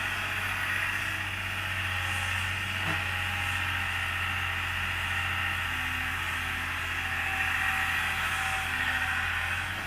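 Excavator's diesel engine running steadily, with an even low hum.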